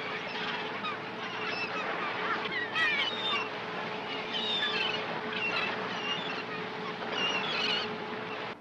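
A flock of gulls calling over the sea, many short overlapping cries, busiest about three seconds in and again near the end, over a steady low hum.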